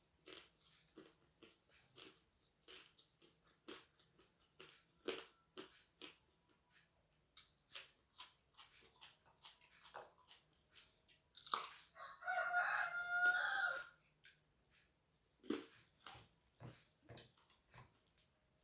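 Close-up mouth sounds of eating: soft chewing, smacking and crunching of rice and curry. About two-thirds of the way in, a rooster crows once for about two seconds, the loudest sound.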